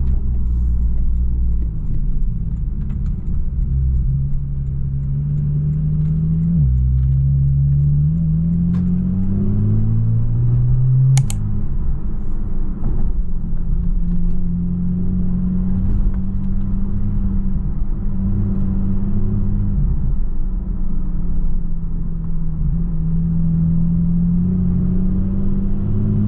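Porsche 718 Boxster GTS 4.0's naturally aspirated flat-six engine pulling through the gears, heard from the car. Its pitch climbs steadily and falls sharply at each upshift, three times, with a short click about eleven seconds in.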